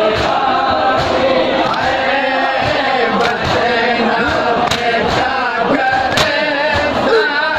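Men chanting a noha together in a wavering melody, with sharp slaps of hands striking chests (matam) at intervals of roughly a second.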